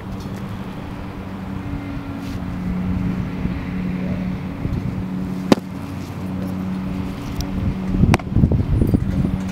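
A baseball pitch popping into a catcher's mitt once, sharply, about five and a half seconds in, over a steady low mechanical hum like an idling engine. Near the end there is a second sharp pop followed by a cluster of low thumps and rustling as the catcher handles the ball.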